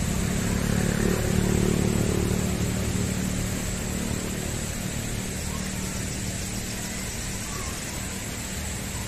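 A motor vehicle's engine on the nearby road, loudest about a second and a half in and then slowly fading away.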